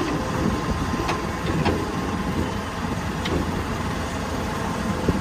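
A steady engine rumble, like a heavy vehicle idling, with a few faint clicks.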